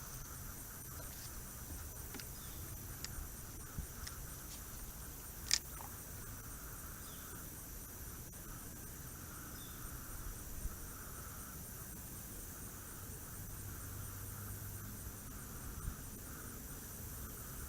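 Faint outdoor pond ambience: a soft, wavering insect hum under a low background, with a few small sharp clicks, the loudest about five and a half seconds in.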